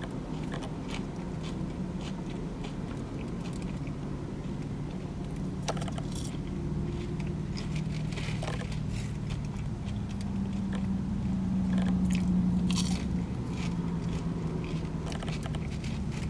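Close-up chewing and crunching of crispy french fries, with many short crackly bites, over a steady low hum that swells for a few seconds past the middle.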